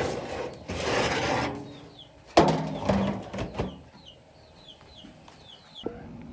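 A rustling scrape, then a sharp clank and a few smaller knocks, like metal gear or a gate being handled. Chickens give short, high, falling chirps through the middle.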